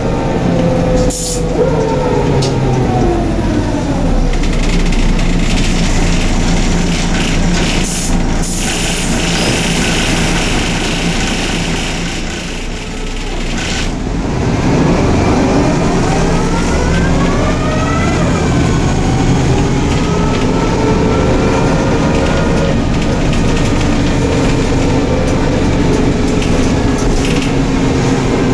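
Inside a Neoplan/ΕΛΒΟ N4007 city bus, the engine and drivetrain run as the bus slows, falling in pitch and easing off to a lull about halfway through. The bus then pulls away again with a whine rising in pitch before it settles to a steady run. A few short hisses of air break in, near the start and a few times later on.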